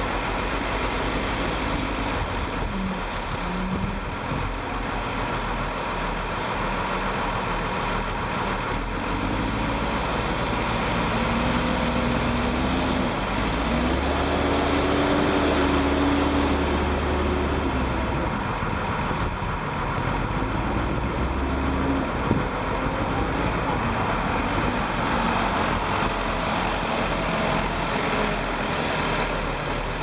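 Case 580L backhoe loader's turbo diesel engine running under load. It revs up and grows louder as the machine drives close past around the middle, then eases off as it moves away. A single sharp clank comes about two-thirds of the way through.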